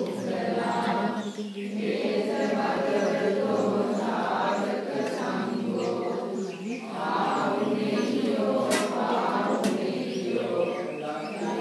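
A group of voices chanting Buddhist Pali verses together in a steady, phrased recitation, with two sharp clicks about nine and ten seconds in.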